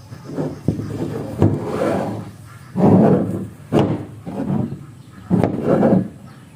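Wood being worked by hand: a series of irregular scraping strokes, about six of them, with a few sharp knocks mixed in.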